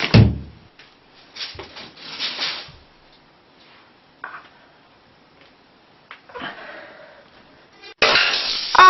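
A single loud thump, then scattered faint clicks and rustling handling noises.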